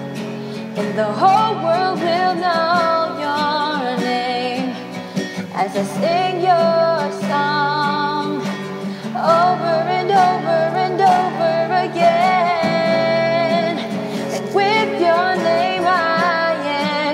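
Home-recorded song: a woman sings wavering, drawn-out notes without clear words over guitar accompaniment.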